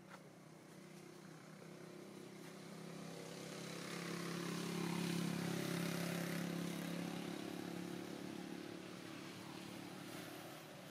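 A motor vehicle's engine passing by, a steady hum that grows louder to a peak about five seconds in and then fades away.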